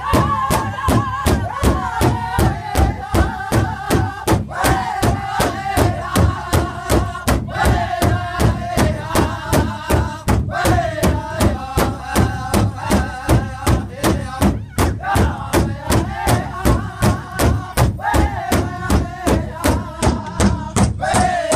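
Powwow drum group singing an intertribal song in unison while striking one large bass drum together with drumsticks at a steady beat of about three strokes a second. The high-pitched sung phrases start high and fall, again and again.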